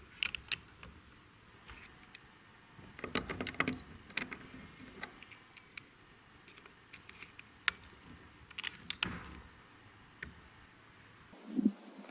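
Metallic clicks and knocks of an Air Arms S510 PCP air rifle's action being worked by hand at the breech, coming in irregular clusters, with a short dull thump near the end.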